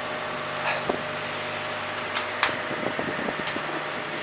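A vehicle engine idling with a steady hum, with a few sharp clicks and knocks over it.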